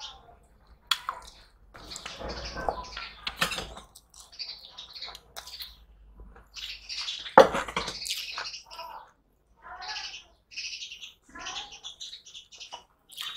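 Close-up eating sounds: wet smacking and chewing, and fingers squishing rice and fish curry together, in short irregular bursts. About seven seconds in there is a single sharp knock, the loudest moment.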